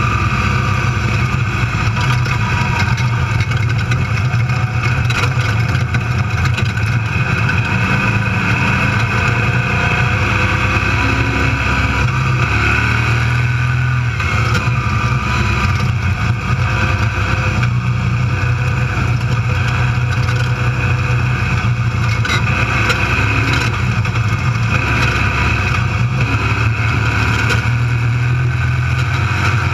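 Desert race vehicle's engine running hard at a fairly steady pitch, heard from inside the cab, with tyre and chassis noise and scattered short rattles from the rough course.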